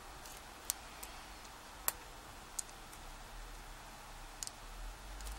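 Lock pick and tension tool working the pins inside a Kasp 19070X padlock's pin-tumbler cylinder during single-pin picking: a handful of light, sharp metallic clicks at irregular intervals, two in quick succession near the end.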